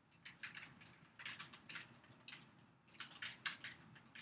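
Faint typing on a computer keyboard: short key clicks in quick, uneven runs.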